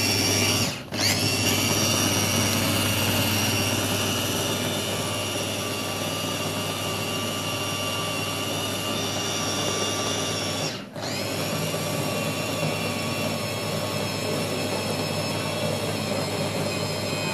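Small electric food chopper's motor running steadily with a whine as it chops cooked green plantain. It cuts out briefly about a second in and again about eleven seconds in, each time rising back up to speed as the button is pressed again.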